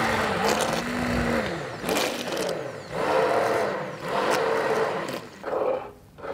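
Handheld immersion blender puréeing thick red lentil soup in a pot. Its motor whirs in a series of surges, the pitch dipping each time the blade works through the soup.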